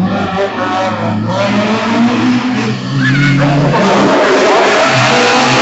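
Historic rally car engines approaching on an asphalt special stage, revving hard with the pitch rising and dropping through gear changes, growing louder about three to four seconds in.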